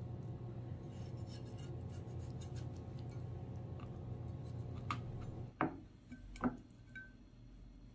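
Microwave oven running with a steady hum that cuts off about five and a half seconds in. Two sharp clicks and a couple of short high beeps follow.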